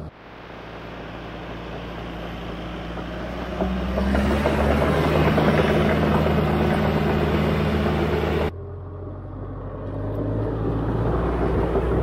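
John Deere 450J LGP crawler dozer running and moving on its tracks: a steady diesel engine hum with heavy mechanical noise. It grows louder about three and a half seconds in, drops off sharply at a cut about eight and a half seconds in, then builds again near the end.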